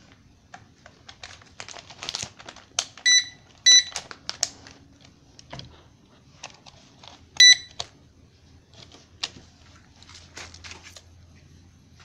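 Toy packaging being handled: plastic crinkling, rustling and clicking. Three short, high electronic beeps stand out above it, two close together about three seconds in and one a little past the middle.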